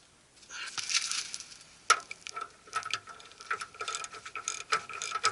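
Ratchet wrench clicking in quick, uneven runs of ticks with a sharper metallic click about two seconds in, as the nut is run back down onto the tie rod end's stud.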